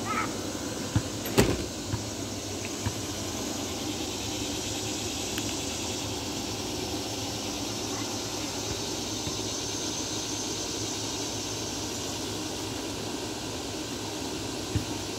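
Steady outdoor background noise, a low rumble with a high hiss over it. It is broken about a second in by a few sharp knocks.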